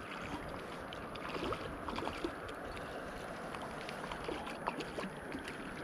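Water lapping at the shore with steady wind noise, and a few faint, irregular light splashes or ticks.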